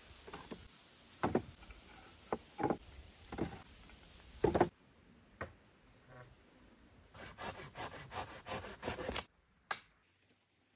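Wood being handled and worked by hand: scattered knocks and scrapes, then a quick run of scraping strokes a little past the middle, ending with a single click.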